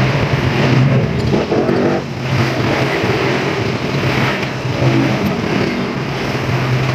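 A motor running with a steady low drone.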